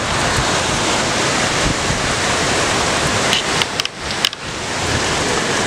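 Hurricane wind and rain making a steady rushing noise, with the wind buffeting the microphone. A few brief ticks a little past halfway.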